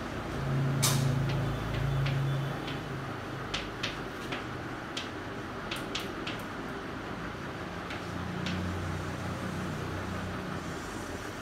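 Chalk on a chalkboard while writing: a series of short, sharp taps and clicks as strokes start and end, over a low hum that swells in the first couple of seconds and again later.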